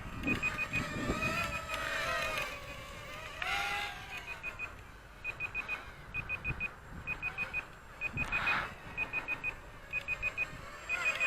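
Hubsan X4 H107C transmitter's low-battery alarm: short high beeps in quick groups of three or four, about once a second, as the quadcopter's battery reaches low-voltage cutoff. The small brushed motors whine faintly underneath, their pitch wavering.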